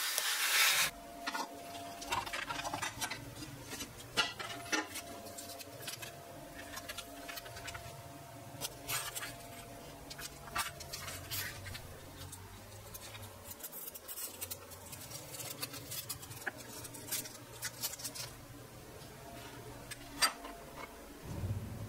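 Hands handling a sheet of thin plastic photosensitive dry film and tape on a cutting mat: scattered light clicks, taps and rubbing over a faint low hum. It opens with a brief hiss that cuts off just under a second in.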